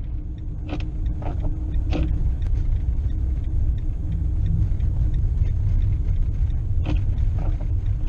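Steady low rumble of a cargo van driving on a snow-covered road, heard from inside the cab, with a few scattered clicks and knocks.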